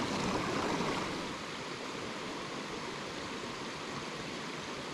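Mountain creek flowing over rocks: a steady, even rush of running water.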